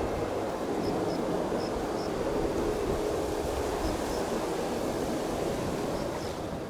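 Steady rushing noise of strong wind, with faint short high chirps that come in pairs now and then.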